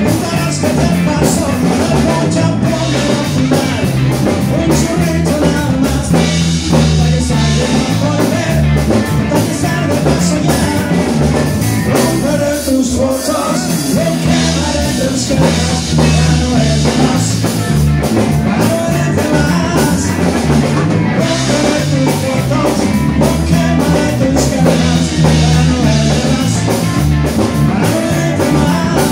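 A live band plays rock through PA speakers: a male singer over electric bass, electric guitar and a drum kit, with saxophone and trumpet. The bass and drums thin out briefly about halfway through, then the full band comes back in.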